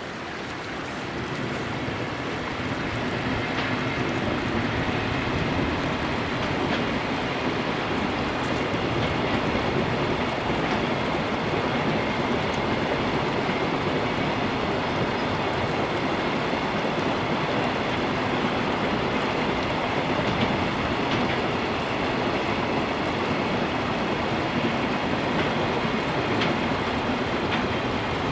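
JR Freight container train passing on the embankment, the steady running noise of its wagons on the rails mixed with the shallow river flowing close by. The train noise swells over the first few seconds, then holds steady.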